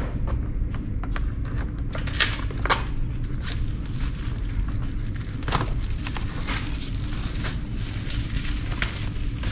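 Cardboard retail box of a DJI Mini 2 SE drone being handled and opened: scattered short scrapes and taps of cardboard, the sharpest about two and three seconds in and again past five seconds, over a steady low hum.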